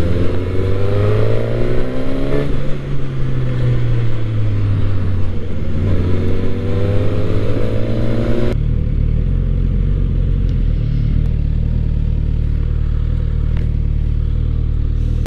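Suzuki GSX-S1000 inline-four motorcycle engine under way with wind noise, the revs climbing, dropping at a gear change and climbing again. About eight and a half seconds in, it cuts abruptly to a steady low idle.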